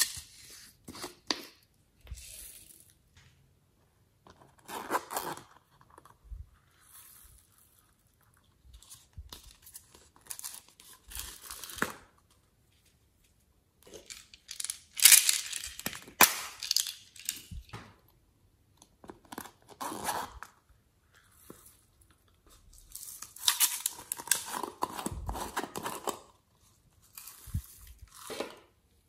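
Soft plastic clay containers being squeezed and handled by hand: crinkling and rustling in separate short bursts with quiet between them. The longest and loudest bursts come about halfway through and again a few seconds before the end.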